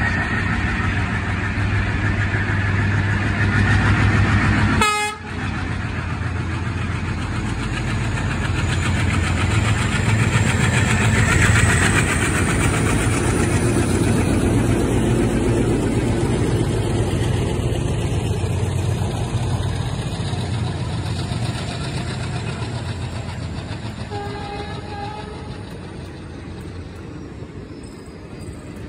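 A pair of Indian Railways diesel locomotives passing close at speed, their engines droning loudly. The drone gives way to the rolling noise of the passenger coaches, which fades towards the end. A short horn note sounds about twenty-four seconds in.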